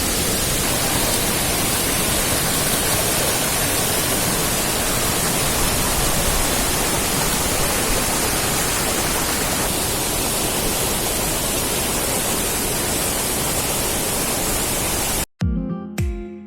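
Palaruvi waterfall rushing: a steady, even roar of falling water. It cuts off abruptly about a second before the end, replaced by plucked guitar music.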